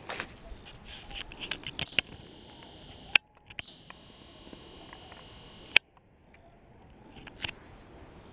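Soft crunching footsteps on dry grass and leaves. Then two sharp clicks about two and a half seconds apart, with a faint steady whine between them from a camera zoom motor as the picture zooms in.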